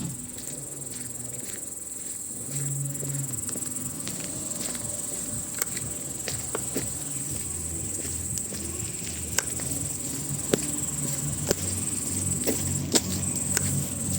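Insect chorus keeping up a steady high trill, with scattered sharp clicks that come more often in the second half.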